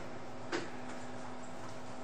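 Quiet room tone with a steady low hum, and a single short click about half a second in.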